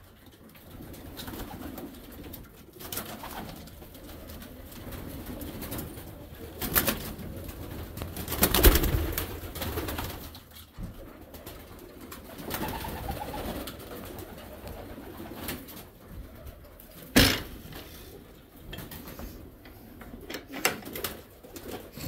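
Domestic pigeons cooing steadily in a loft, with a few sudden sharp noises, the loudest about nine seconds in and another about seventeen seconds in.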